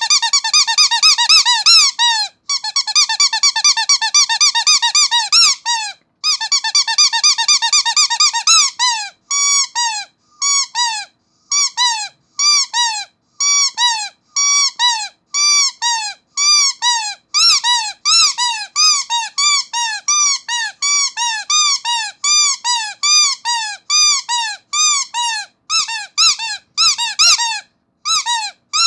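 Rubber starfish squeaky toy squeezed again and again, giving loud, high-pitched squeaks. For about the first nine seconds the squeezes come fast and close together. After that they come as separate squeaks, about two a second.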